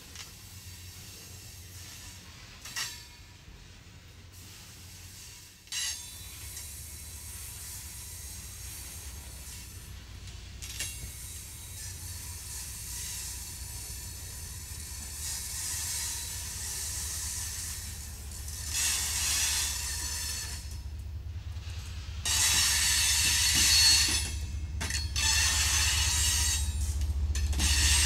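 Freight train of tank cars and gondolas rolling past: two sharp wheel clicks over the rail joints early on, then a high hissing screech of steel wheels on the rails that gets louder in the second half. Under it a low diesel hum builds toward the end as the rear distributed-power locomotive, a GE ES44AC, draws near.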